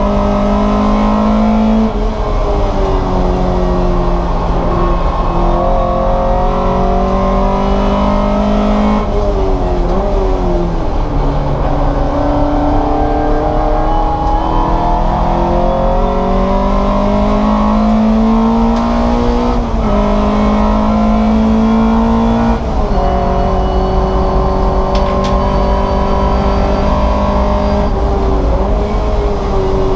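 Race car engine running hard. Its pitch climbs slowly through each gear and drops sharply at the gear changes, several times over the half-minute.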